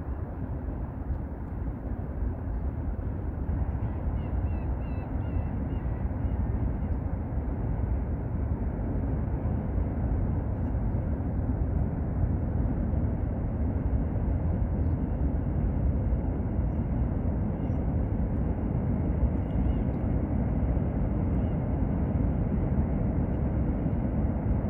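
Steady low rumble of open-air riverside ambience, distant city traffic and wind on the microphone blended together. A few faint high chirps about four to six seconds in.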